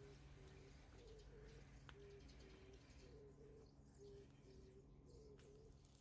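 A dove or pigeon cooing faintly: a run of short, low hooting notes, some coming in wavering pairs, with a single faint click about two seconds in.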